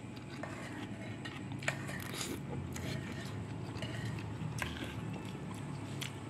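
A metal spoon stirring and scooping instant noodles and broth in a plastic bowl, with a handful of light clicks of the spoon against the bowl, over a steady low hum.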